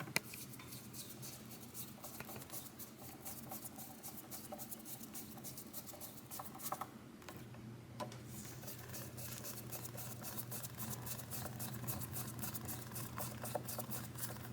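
Faint, rapid ticking and scratching of small screws being handled and driven as a pickguard is fastened back onto a Gibson SG, over a steady low hum.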